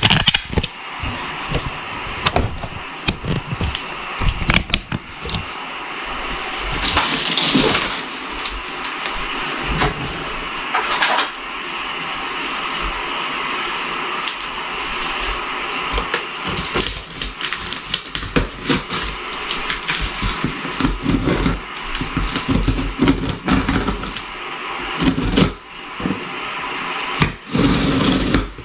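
Parts of a plastic artificial Christmas tree being handled and fitted together: irregular rustles, clicks and knocks, with a couple of longer scrapes, over a steady whooshing background noise.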